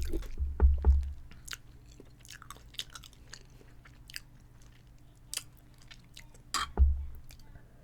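A person chewing a mouthful of chicken parmesan and spaghetti close to the microphone: wet mouth clicks and smacks. There are a few low thumps about half a second in and again near the end.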